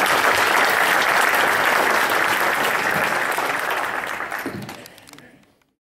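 An audience applauding, many people clapping at once; the applause fades away about five seconds in.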